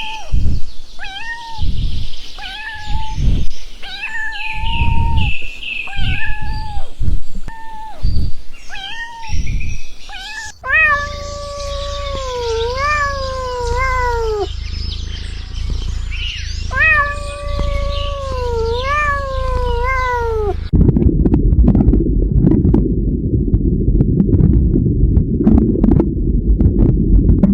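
Cats meowing repeatedly: short calls for the first ten seconds, then longer calls that rise and fall. About twenty seconds in the calls stop abruptly and a loud low rumbling noise with scattered clicks takes over.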